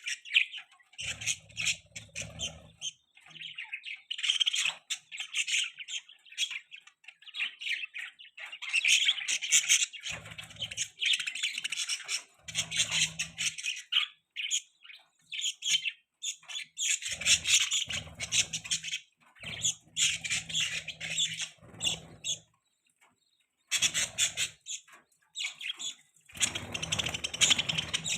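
Baby budgie chirping and squawking in rapid, repeated bursts with short pauses, and now and then a low rustling underneath.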